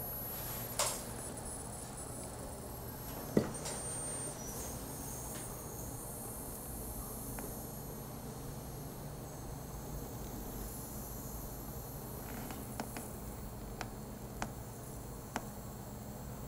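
Ultrasonic (sonic) cutter slicing through the plastic seam of a car tail light housing. It gives a steady, high-pitched whine over a low hum, with a sharp tap about three seconds in and a few light clicks near the end.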